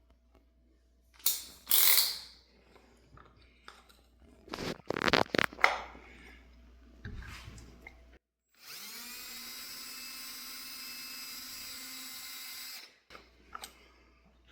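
A handheld power tool's electric motor spins up, runs steadily at one pitch for about four seconds, then stops abruptly; before it, some loud knocks and clatter of tools being handled.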